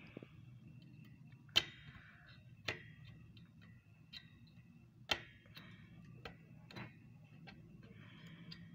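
Sharp, irregular metal clicks: three louder ones and several fainter ticks as a small metal tool and the legs of 2SA1943 power transistors knock against the circuit board while the legs are worked into its holes.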